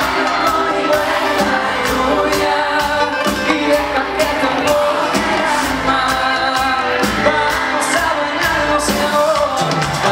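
A song with a male lead vocal over a band of guitars, bass, drums and hand percussion, with a steady beat.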